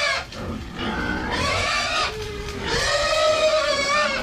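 Pigs squealing: a shorter squeal rising in pitch a little over a second in, then a long, high, drawn-out squeal in the second half.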